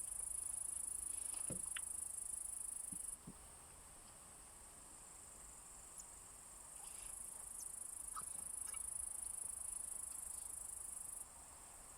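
Faint, steady, high-pitched insect trill, typical of a cricket, in two long stretches: it stops about three seconds in and starts again about seven seconds in for a further four seconds.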